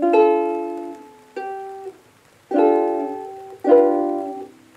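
Ukulele strumming four chords, each struck once and left to ring out and fade, the second one softer and shorter.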